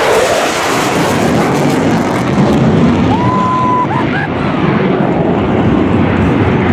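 Steady jet noise of a Thunderbird F-16 Fighting Falcon flying past the crowd, with a short whistle-like tone about three seconds in.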